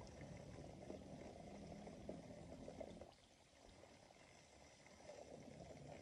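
Faint sloshing and trickling of a hand sweeping through shallow pond water, easing off briefly midway.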